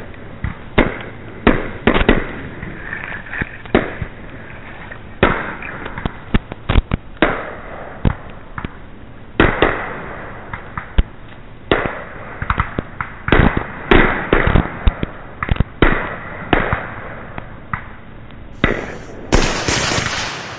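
A fireworks show: aerial shells bursting in dozens of sharp bangs at irregular intervals, bunched several to a second at times, over a steady noisy background.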